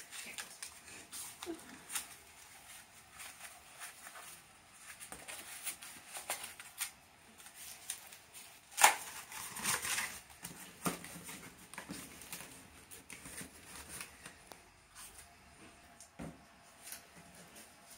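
Paper being handled: irregular rustling and crinkling with scattered clicks and taps, and one sharp crack about nine seconds in.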